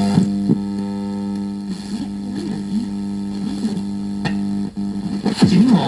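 Guitar music from an FM radio broadcast playing through a Sony CFS-1110S portable radio's speaker, over a steady low tone. This is a station music bed between spoken segments, and it shows the radio is receiving FM again.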